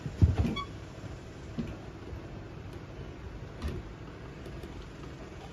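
A dull thump just after the start, then a few light knocks, from hands working on a pressure washer's small engine during an oil change.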